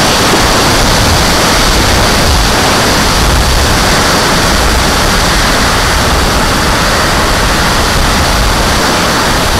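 Steady rush of wind and engine noise from a turbine-powered RC jet in fast flight, heard through its onboard camera's microphone.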